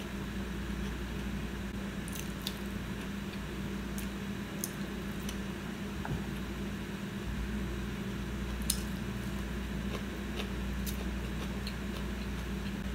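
Close-up chewing of pad thai noodles: soft, wet mouth sounds with a few sharp clicks scattered through, over a steady low hum.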